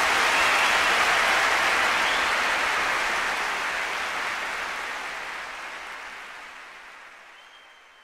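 Audience applauding, fading out gradually to silence.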